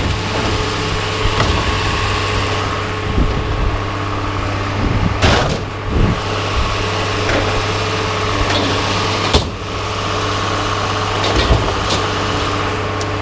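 An engine idling steadily, with a few short knocks or clanks over it now and then.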